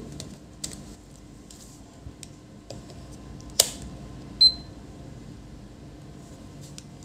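Digital multimeter being switched from a voltage range to resistance: a few light clicks as the range dial is turned, a sharp click about three and a half seconds in, then one short high beep from the meter just after.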